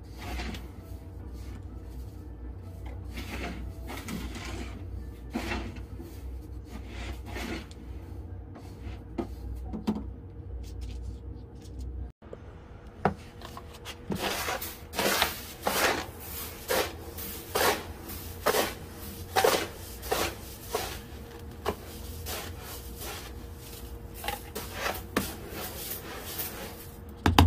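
Plastic litter scoop raking through cat litter in a plastic litter box: gritty scraping strokes, sparse and quiet at first, then a steady run of louder strokes about one a second from about halfway through.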